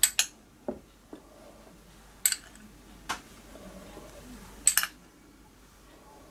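Light clicks and clinks of a small glass bowl and a china plate, about half a dozen short taps with quiet between, as chopped gherkin is picked out with the fingers and scattered on the plate.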